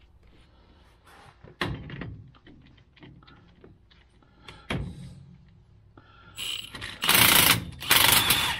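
A few light metal clinks as the two-jaw puller is set on the pinion flange. Then, near the end, a Milwaukee Fuel cordless impact wrench runs in two short loud bursts, hammering the puller's forcing screw to press the flange off a Dana 44 rear axle's pinion.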